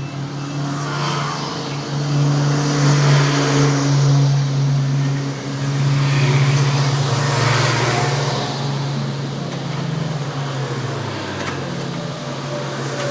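Heavy diesel engine of working earth-moving machinery running steadily, swelling louder twice as it is put under load.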